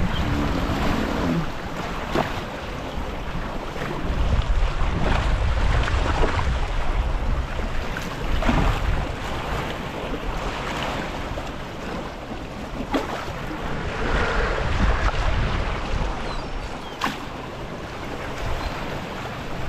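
Water rushing and splashing along the hull of a small wooden sailing proa under way, with now and then a sharper slap. Wind buffets the microphone in rumbling gusts that swell and fade.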